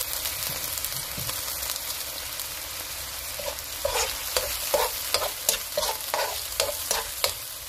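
Wine-and-soy sauce sizzling and bubbling in a hot non-stick wok around pork, garlic and onion. From about halfway a spoon stirs through it, scraping the pan in repeated strokes, about two to three a second.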